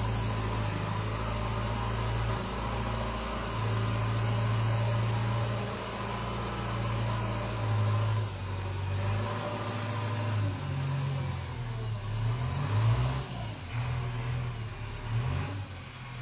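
Backhoe loader's diesel engine running steadily, then revving up and down repeatedly from about halfway through.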